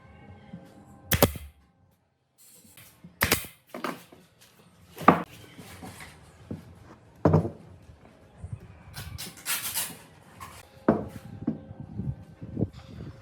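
Irregular knocks and clatters of wooden parts and tools being handled in a woodworking shop, about a dozen sharp hits spread a second or two apart, the loudest one about five seconds in.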